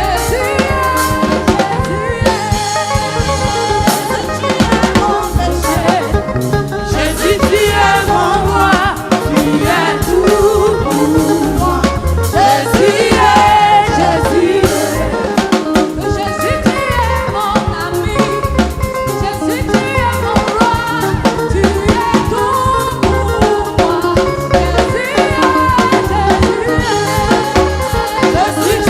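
Gospel choir singing praise music to a live band, with a drum kit keeping a steady beat under the voices.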